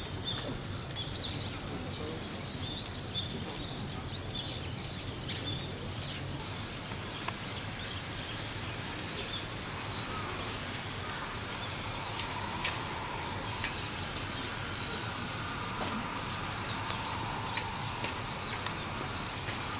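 Small birds chirping in short, high calls over a steady outdoor background hiss. The calls are busiest in the first few seconds and pick up again near the end.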